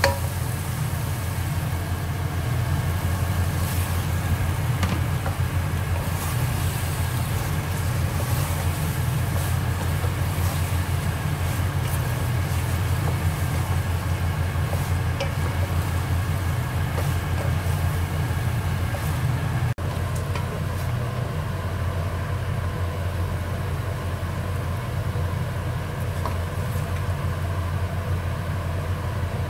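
Steady low droning hum, like a fan or motor, with faint scrapes of a wooden spoon against an aluminium pot during the first two-thirds.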